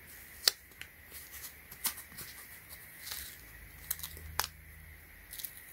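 Blue painter's tape being pulled off its roll and pressed onto a foam shoe: a few short rasps of tape unrolling among several sharp clicks and taps, the loudest about half a second in.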